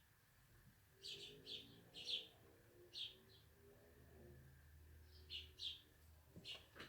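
Sparrows chirping: short, high single chirps in small scattered clusters, faint overall.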